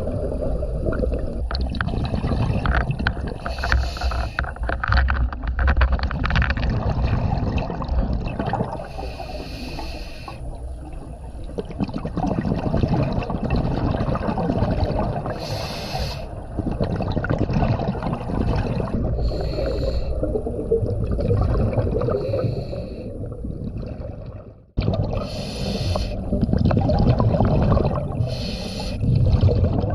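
A scuba diver breathing through a regulator underwater: a hiss on each inhalation every four to six seconds, with bubbling and gurgling of exhaled air over a steady low rumble of water. The sound drops out briefly near the end, then picks up again.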